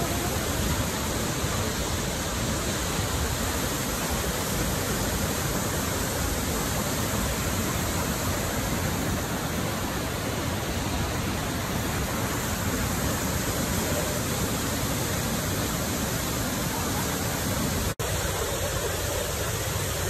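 A 20-metre waterfall, the Cascada de Texolo, plunging into its pool: a steady, dense rush of falling water. It cuts out for an instant near the end, then carries on.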